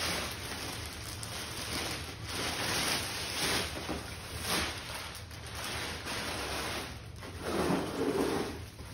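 Clear plastic wrapping crinkling and rustling in uneven swells as it is pulled off a rolled-up inflatable paddle board, loudest near the end.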